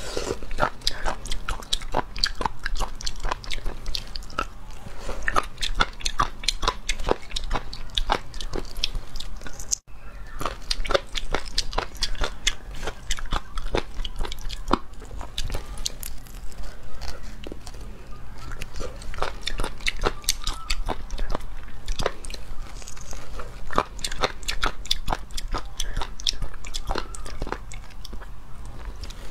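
Close-up mouth sounds of eating small shelled sea snails by hand: rapid wet clicks, sucking and chewing, with a brief break about ten seconds in.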